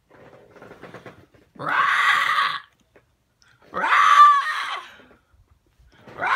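A person's loud, raspy "rah!" noise, made twice and starting a third time at the end, each about a second long and rising at its start. It is a noise used to make the cat mad while her tail is stroked.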